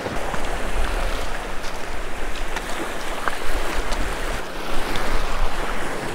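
Small surf waves washing over the shallows, with wind buffeting the microphone in a low, uneven rumble.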